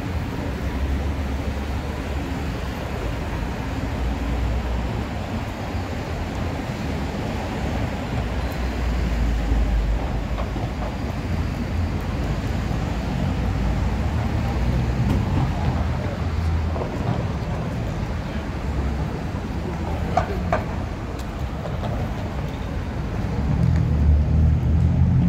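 City street traffic: a steady low rumble of passing cars and buses, growing louder near the end, with a short high squeal about twenty seconds in.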